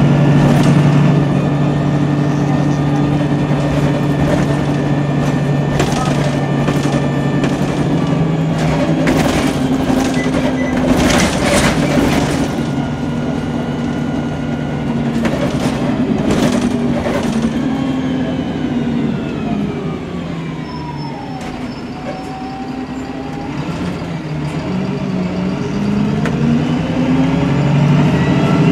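MAN 18.240LF single-deck bus with its Cummins diesel engine, heard from inside the passenger saloon while under way, with several rattling knocks from the body in the first half. About two-thirds through, the engine note drops and a whine falls in pitch as the bus slows, then the engine pitch climbs again near the end as it pulls away through its Voith automatic gearbox.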